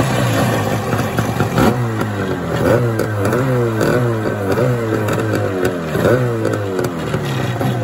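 Kawasaki 650 SX stand-up jet ski's two-stroke twin engine catching and running out of the water, then revved up and down over and over from about two and a half seconds in. With the disconnected exhaust reclamped, it now keeps running instead of losing power and shutting off.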